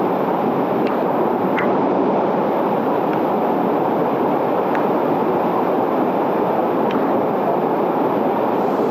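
Swollen jungle waterfall pouring heavily over rocks into a pool, a steady loud rush of water with no let-up.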